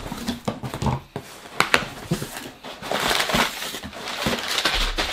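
Cardboard box flaps being opened with a few knocks, then crumpled brown kraft packing paper rustling as it is pulled out of the box, loudest in the second half.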